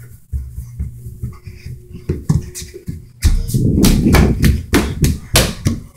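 Footsteps going down stairs and across a hard kitchen floor, with the rubbing and bumping of a hand-held phone against its microphone. From about halfway the handling noise turns into a loud low rumble with several sharp knocks.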